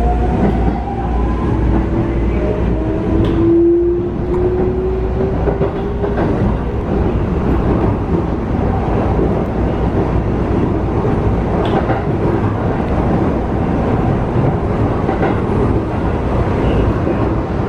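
Inside a Keikyu New 1000 series (1300 subseries) electric train: the Toyo IGBT-VVVF inverter and traction motors whine in rising tones as the train accelerates away from a station. After about six seconds this gives way to steady wheel-on-rail running noise with a low rumble.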